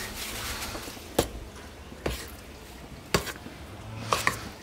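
Metal spoon knocking against a stainless steel mixing bowl about once a second while thick jalebi batter is stirred, with a pair of quick knocks near the end.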